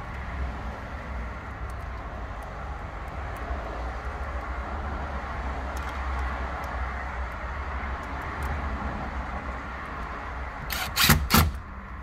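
Steady low rumble of outdoor background noise, then three sharp knocks in quick succession near the end.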